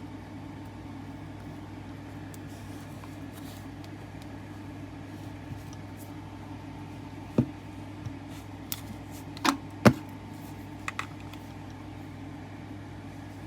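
A steady low hum, with a handful of sharp clicks and knocks from handling soldering tools and wires at the bench, clustered in the second half.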